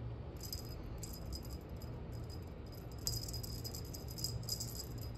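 Fish-shaped cat wand toy rattling in short, jangly bursts as it is swung on its string, over a faint low hum.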